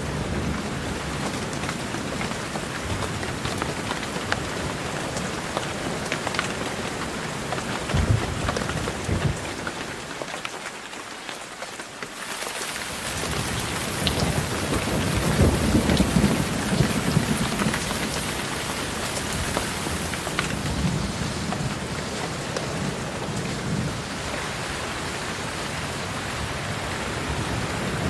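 Heavy rain falling steadily, with thunder rumbling low. The rain thins briefly about a third of the way in, then returns with a louder rolling rumble.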